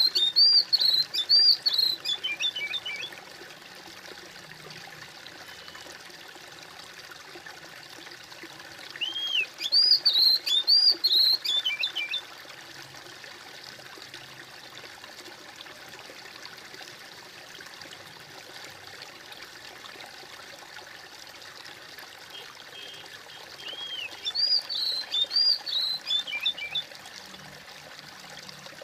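Steady trickling of a small stream, with a bird singing the same short phrase of arching notes three times, about fourteen seconds apart.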